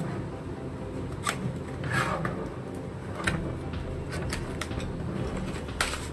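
Packaging being handled and pulled open, with rustling and a few sharp clicks and snaps: one at about a second in, a longer scraping one at about two seconds, another past three seconds and one near the end.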